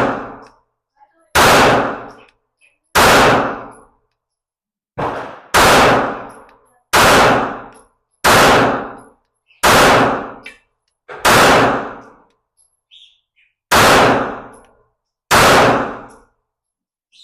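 About ten 9mm pistol shots from a newly assembled Glock 17 clone, fired one at a time at a slow, steady pace of roughly one every one and a half seconds, each a sharp crack with a brief echo. One shot about five seconds in is fainter than the rest.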